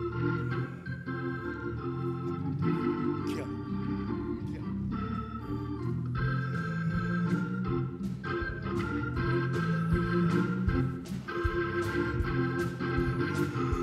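Organ playing slow, sustained chords that change every second or two, as offertory music.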